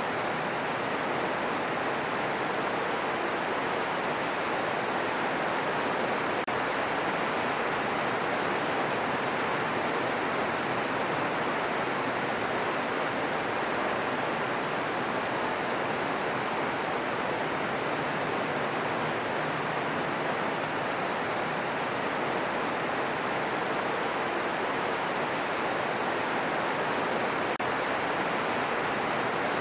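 Green noise: a steady, unchanging hiss weighted toward the middle frequencies, with no drops, rumbles or other events.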